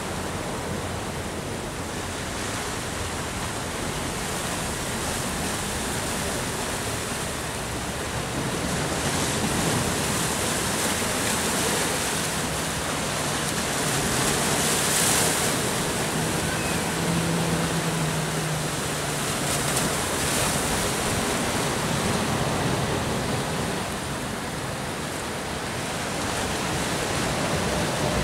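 Sea surf washing and breaking on a rocky shore: a steady rush that swells and eases, loudest about halfway through.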